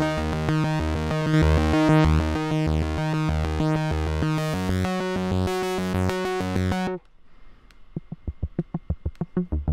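Dave Smith Instruments Tetra analog synthesizer playing a repeating bass line with a bright, buzzy tone while its patch is being tweaked. About seven seconds in, the sound abruptly turns dull and quiet with short clipped notes, then swells back to full near the end.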